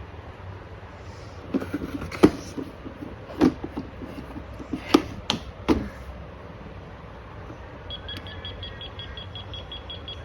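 Plastic toy fridge being handled: a string of sharp clicks and knocks as its parts are opened and pressed. Near the end the toy gives a fast run of high electronic beeps.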